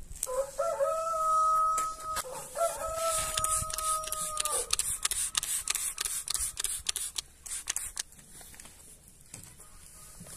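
A rooster crowing: one long crow of about four seconds, broken briefly in the middle and dropping in pitch at the end. It is followed by a run of short hissing squirts from a hand trigger spray bottle.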